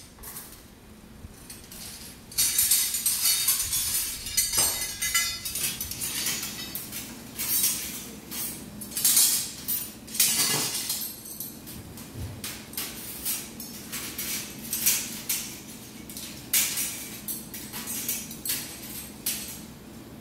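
Stainless steel surgical instruments and retractors clinking and clattering in irregular bursts as they are handled and laid into a wire-mesh instrument tray.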